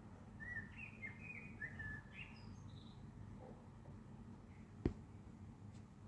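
A bird chirping a quick series of short notes in the first two seconds, over a low steady background rumble. A single sharp click about five seconds in.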